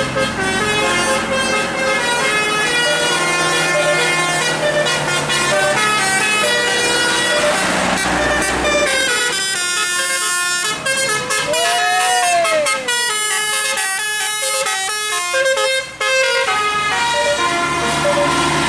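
Basuri 'telolet' multi-tone bus air horn playing a stepping melody. The bus engine rumbles under it for the first half and again near the end, and about halfway a single tone slides up and back down.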